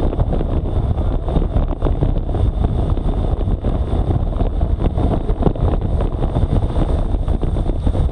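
Heavy wind buffeting on the microphone of a road-bike-mounted action camera, a steady low rushing noise from the airflow as the bike freewheels at about 50–60 km/h.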